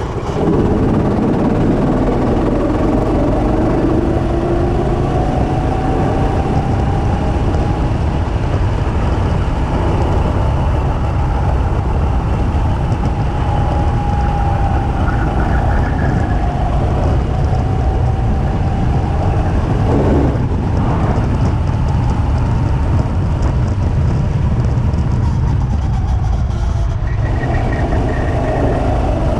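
Two-seater go-kart's engine running on the track, its pitch slowly rising and falling with speed, mixed with heavy wind rush on the kart-mounted camera.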